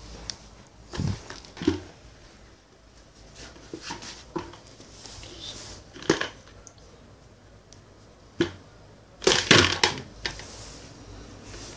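Irregular knocks and clatter of a plastic bucket and plastic toys being handled and bumped on a carpet, with a louder flurry of clattering about nine seconds in.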